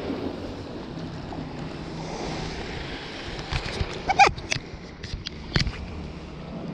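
Steady wind and surf on the microphone, with a quick falling swish and a run of sharp clicks around four to six seconds in from a spinning rod and reel being cast.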